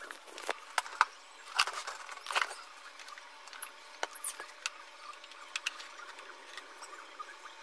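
Scattered clicks, taps and short rustles, like objects being handled, with a brief high squeak about three and a half seconds in; no motor running.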